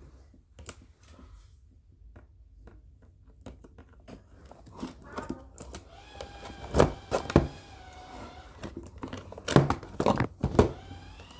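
Toy packaging being handled and worked open by hand, with scattered small clicks and several loud thunks, two just past the middle and three more close together near the end.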